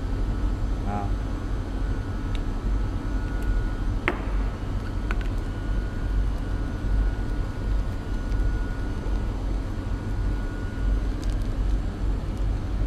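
Steady low rumble of workshop background noise, with a sharp click about four seconds in and a few small ticks as collets and small cutters in their plastic cases are handled on a workbench.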